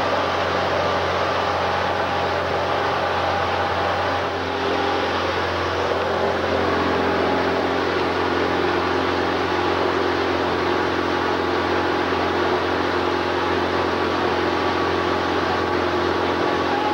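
Tour boat's engine running steadily under way, a constant hum with mixed noise.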